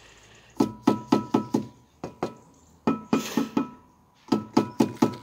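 Steel cavity lintel being tapped down into its mortar bed to level it: runs of quick light taps, four or five at a time, each with a short metallic ring, and a brief hiss midway.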